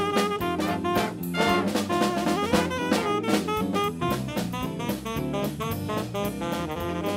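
Background jazz music: a horn melody over a drum kit with a steady beat.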